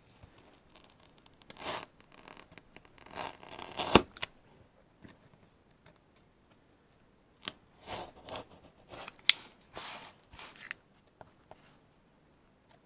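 Knife blade scraping and cutting through a thin wooden fruit-crate board in short strokes, with one sharp click about four seconds in. After a short pause the cutting strokes resume.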